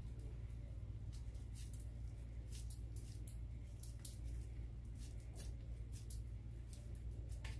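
Hands pressing and squeezing seasoned minced meat onto a wooden skewer, giving short, irregular clicks and smacks over a steady low hum.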